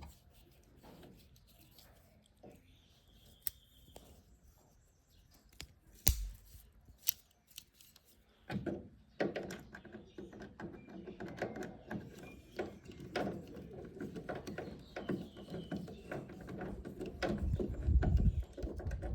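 Screw being driven by hand with a Phillips screwdriver into a pickup's plastic taillight housing: a few sharp clicks at first, then a busier run of clicking and scraping from about halfway in.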